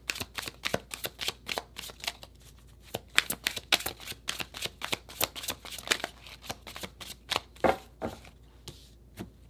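A tarot deck being shuffled by hand: a rapid run of light card snaps and flicks that thins out near the end.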